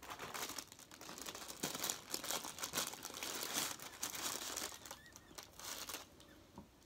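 A food wrapper crinkling and rustling as it is handled and opened for eating, a dense run of irregular crackles that dies down about five and a half seconds in.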